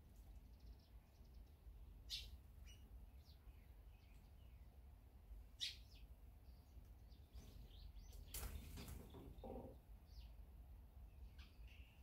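Small birds chirping faintly: scattered short, high chirps, with two sharper ones about two and five and a half seconds in. A brief rustling noise comes a little past the middle.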